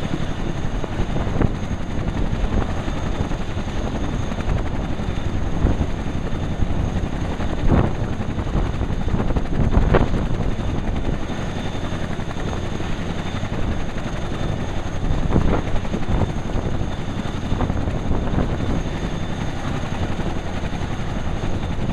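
Boeing CH-47 Chinook tandem-rotor helicopter running on the ground while warming up: its twin turboshaft engines give a steady high whine over a dense rotor rumble, with a few brief louder swells in the middle.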